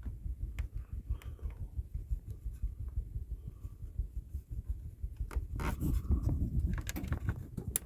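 Faint rubbing and handling noise with a few light clicks, mostly in the second half, from fingers working the control buttons of a Dometic 3-way RV refrigerator while switching it over to DC mode.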